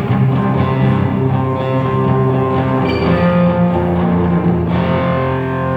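Electric guitar played through an amplifier during a sound check: held, ringing chords that change about halfway through.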